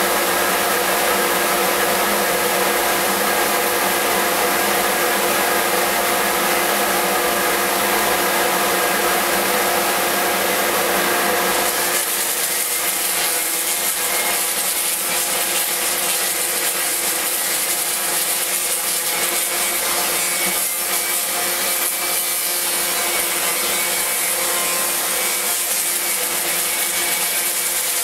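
Random orbital sander running steadily while sanding a wooden speargun stock, a motor whine over the hiss of the abrasive on wood. About twelve seconds in the low rumble drops away and the sound of the sanding changes.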